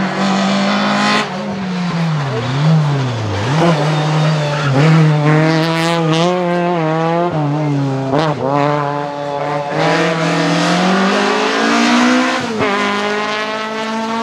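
VW Golf 3 Kit Car's 2.0-litre naturally aspirated four-cylinder rally engine accelerating hard through the gears. The revs climb in long sweeps and drop sharply at each upshift, three times in the second half.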